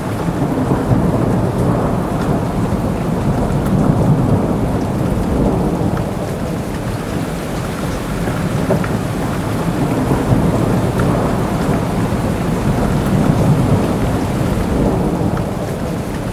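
Steady rain falling, with low rolling thunder that swells about four seconds in and again near the end.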